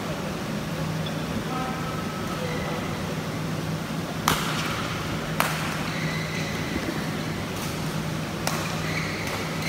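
Steady hum and hiss of a badminton hall's background noise, broken by three sharp clicks about four, five and a half, and eight and a half seconds in, the first the loudest.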